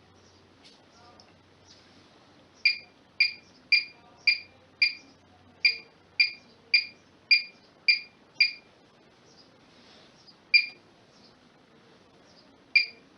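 Bosch Serie 6 washing machine's control panel beeping as settings are keyed in: a run of eleven short, high beeps about half a second apart, then two single beeps near the end.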